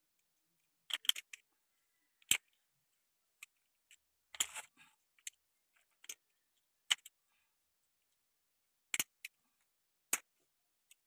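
Sharp metal clicks at irregular intervals, some in quick pairs, from a screwdriver prying at the lock ring inside the steel power-steering cylinder of a Mahindra Yuvo 415 DI tractor.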